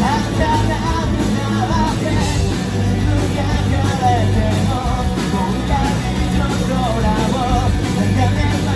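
Rock band playing live: electric guitars, bass and a drum kit, with a male voice singing over them.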